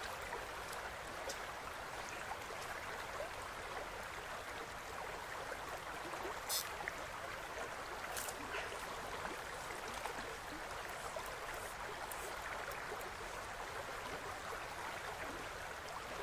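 Shallow river water running steadily over stones: an even rush of a small riffle. A brief high click about six and a half seconds in.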